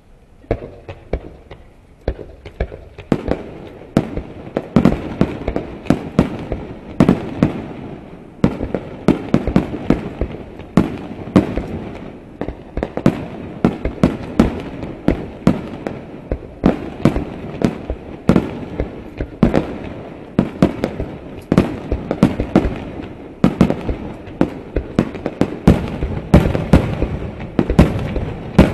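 Aerial fireworks shells bursting in a rapid barrage: sharp bangs several times a second over a continuous rolling rumble, lighter at first and loud and dense from about three seconds in.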